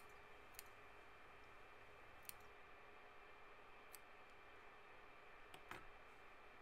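Small stork-shaped embroidery scissors snipping through the folded loops of cotton embroidery floss: a few faint, sharp clicks a second or two apart, against near silence.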